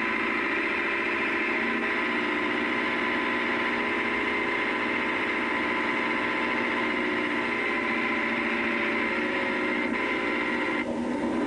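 Leyland tractor's diesel engine running steadily while pulling a multi-furrow plough. Its tone shifts just before the end, getting lower with less high sound.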